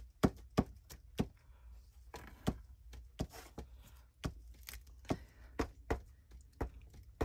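Light, irregular taps and a faint paper rustle as the nozzle of a small liquid glue bottle is dabbed along the edge of a paper strip, about one or two taps a second.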